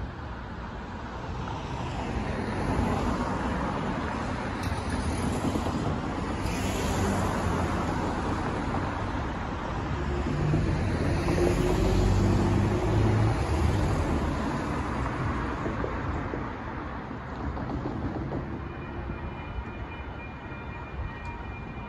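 Road traffic passing through a street-level rail crossing: cars driving by with tyre noise and engine rumble, swelling to its loudest about halfway through as vehicles pass close.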